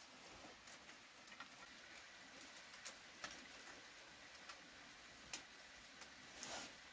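Near silence broken by faint, scattered small clicks and light rustling: the sharpest click comes about five seconds in, and a brief soft rustle comes near the end.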